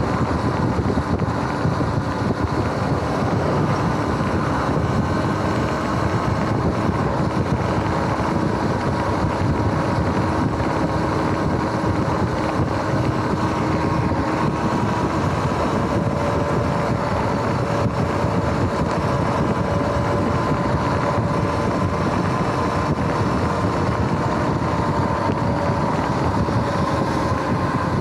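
Wind rushing over the microphone and road noise from an electric bike being ridden at a steady speed, with a thin whine from the electric drive holding nearly steady in pitch.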